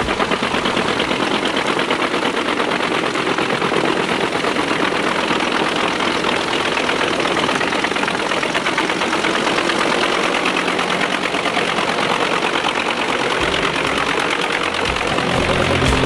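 Pezzolato PTH 1200/1000 PTO-driven drum wood chipper chipping logs and branches: a loud, steady, dense rapid rattle of the knife drum cutting wood, with the driveline running under load.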